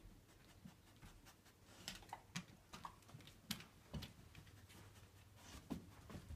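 Faint, irregular clicks and taps of a dog's claws and paws on a hardwood floor as she moves about searching.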